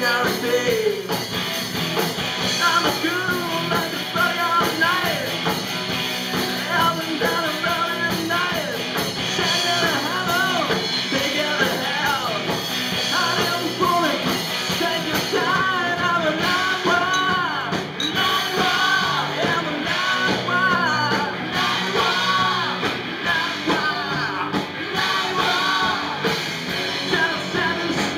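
Live rock band playing, with a lead singer over electric guitars, bass guitar and a drum kit.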